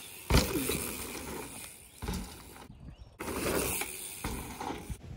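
Mountain bike landing a dirt jump with a heavy thud just after the start, then knobby tyres rolling and skidding over loose dirt, with a few lighter knocks. The sound cuts off abruptly a couple of times.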